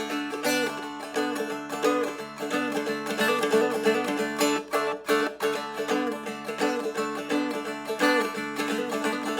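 Seagull Merlin, a small fretted dulcimer-style instrument, strummed and picked in an instrumental intro: a quick plucked melody over steady ringing drone strings.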